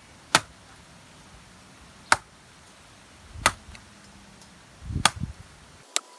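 A coconut struck hard to split it open: four sharp blows, about a second and a half apart.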